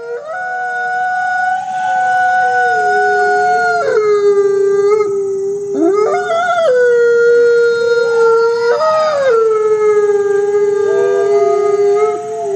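A chorus of howls: several long, overlapping held notes at different pitches, with a few brief rising glides, starting abruptly out of silence.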